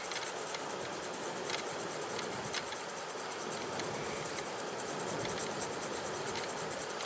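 Prismacolor colorless blender pencil rubbing over colored pencil on a sanded Pastelbord surface, a steady faint scratching of small back-and-forth strokes as it blends the layered color.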